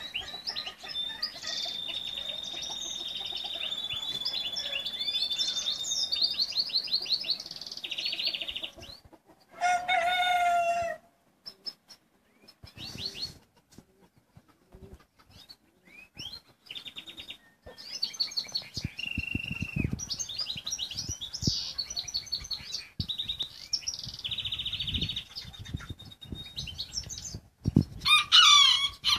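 Small songbirds chirping and trilling, with a long whistled note in the first few seconds. A rooster crows once about ten seconds in, and a loud bird call comes near the end.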